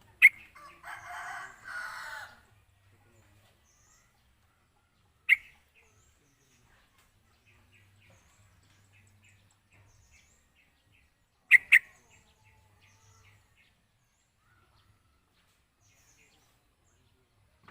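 Birds calling outdoors. A rooster crows once, starting about a second in and lasting over a second. Sharp short sounds ring out around five seconds and twice in quick succession near twelve seconds, with faint chirping notes in between.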